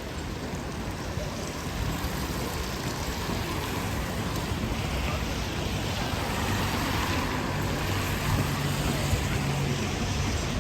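Rainy city street: a steady hiss of rain and tyres on the wet road, with a vehicle engine hum growing louder over the last few seconds.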